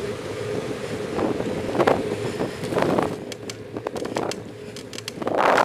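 Wind buffeting the microphone on a moving bicycle, in gusty swells. A steady hum runs under the first half, then a run of sharp ticks and clicks follows.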